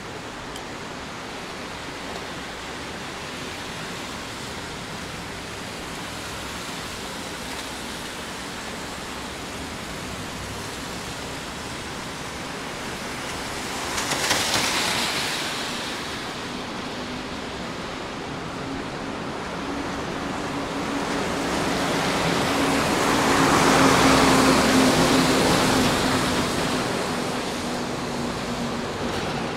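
Steady hiss of rain on a wet city street. A vehicle swishes past on the wet road about halfway through. Over the last third a larger vehicle with a steady engine hum approaches, passes and fades.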